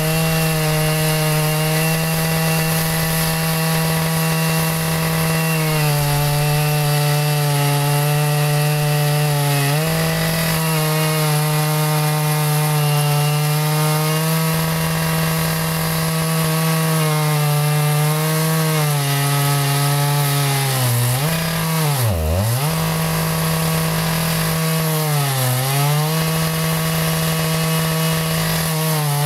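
Chainsaw milling a maple log, its engine held at high revs under load through a long cut. The revs sag briefly a few times and bog down hard about two-thirds of the way through before picking back up.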